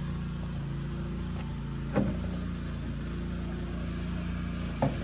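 Petrol engine of a garden rototiller (motor hoe) running steadily, with two short bumps, about two seconds in and near the end, as a tin can is pressed down over a metal plate.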